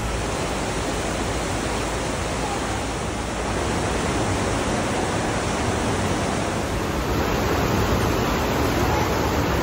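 Waterfall and torrent rushing through a narrow rock gorge: a steady, dense rush of water with no let-up.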